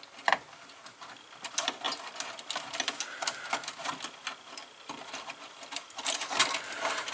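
Insulated hookup wires rustling and clicking against each other and the plastic slotted wire duct as they are pushed into place by hand, a quick irregular patter of small clicks, with one sharp click about a third of a second in.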